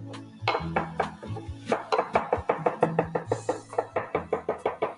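Chef's knife chopping fresh parsley on a wooden cutting board: quick, even knocks of the blade on the board, a few spaced strokes at first, then about six a second, over background music.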